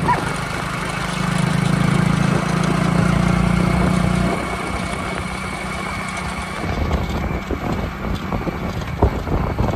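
A road vehicle's engine running with a steady low hum, which drops away about four seconds in, leaving rougher road noise with a few sharp knocks near the end.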